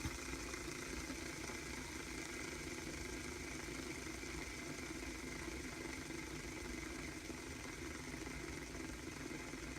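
Fidget spinner with outer bearings spinning freely on its centre bearing, giving a steady low whirring hum.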